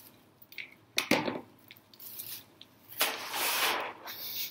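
Plastic bag strips crinkling and rustling as they are handled: a sharp crackle about a second in, then a longer rustle at about three seconds.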